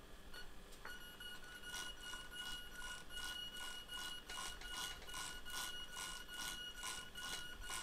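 Small DC gear motors of a two-wheel self-balancing robot holding it upright, with a steady high whine from about a second in. Faint quick ticks come about three times a second as the wheels jerk back and forth.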